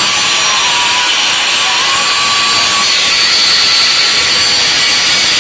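Electric angle grinder with a cut-off disc cutting through a metal pipe: a steady high-pitched whine over the hiss of the disc biting the metal, a little sharper in the second half.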